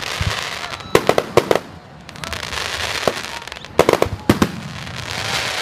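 Fireworks and firecrackers going off: clusters of sharp bangs about a second in and again around four seconds in, a single bang in between, and a crackling hiss between the bangs.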